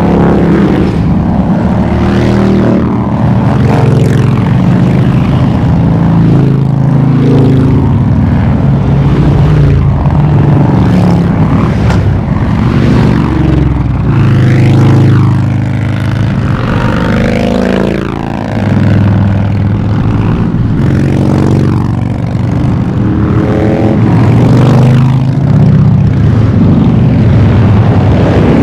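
A stream of motorcycles, mostly V-twin cruisers and touring bikes, riding past one after another in a parade. The engines rumble continuously and loudly, and the pitch drops several times as bikes pass close by.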